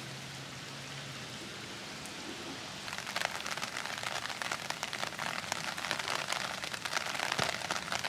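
Rain falling on wet concrete pavement and into a shallow puddle. It starts as a steady hiss, then from about three seconds in becomes a louder, closer patter of many individual drops splashing.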